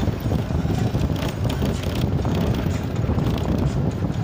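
Steady rumble of a moving vehicle on the road, with wind buffeting the microphone and scattered light knocks and rattles.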